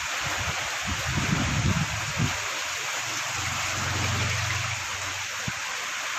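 Heavy rain falling steadily as an even hiss, with irregular low gusts of wind buffeting the microphone. A low steady hum comes in for a second or two about midway.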